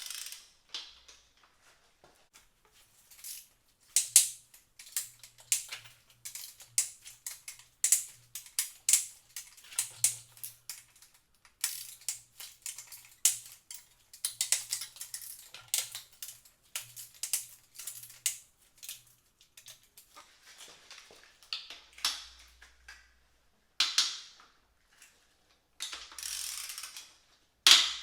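Ratchet wrench clicking in irregular runs of sharp clicks as engine bolts are worked loose, with a few louder metallic knocks.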